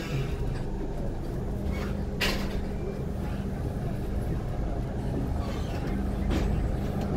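River boat's engine running with a steady low hum, with two sharp knocks, about two seconds in and about six seconds in.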